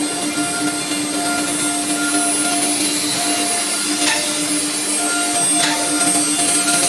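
ELECNC1530 ATC CNC router running: a steady machine whine with pulsing tones over an even hiss. Two brief sweeping sounds come about four and five and a half seconds in.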